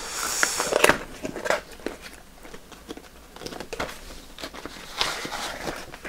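Cardboard product box being opened by hand: a papery scraping rustle as the lid slides off, loudest in the first second, followed by light rubs and taps of card that pick up again near the end.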